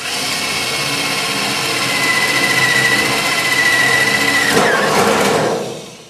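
Electric drill with a 3/8-inch bit boring through sheet-metal furnace panel, the motor running steadily under load. A high steady whine rises out of it about two seconds in and fades near the end as the drill runs down and stops, with the hole through.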